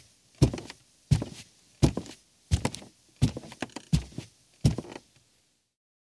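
Man walking barefoot on a creaky rug: seven even footfalls about two-thirds of a second apart, each a soft thud with a short creak and rustle after it, stopping about five seconds in.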